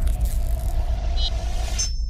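Logo sting sound design: a deep, steady rumble under a held tone and high shimmer. The shimmer cuts off just before the end, leaving a few short high chime tones over the continuing rumble.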